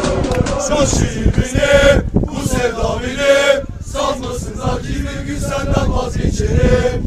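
Male football supporters singing a Bursaspor terrace chant together, many voices in unison.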